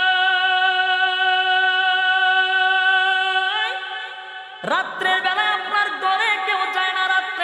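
A waz preacher's voice chanting in a sermon's melodic recitation style. He holds one long steady note that glides upward and breaks off about three and a half seconds in, then after a brief pause starts a wavering, ornamented melodic line.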